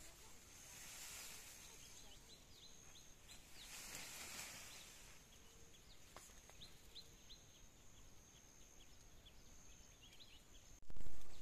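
Tall rice plants rustling as someone wades through them, over a run of many short, quick, falling bird chirps and a thin steady high-pitched whine. A sudden loud burst of noise near the end is the loudest sound.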